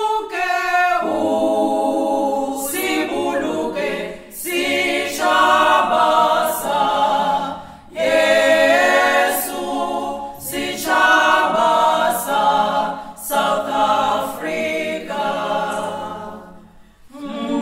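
A choir of mostly women's voices singing a cappella in harmony, in long phrases separated by short pauses.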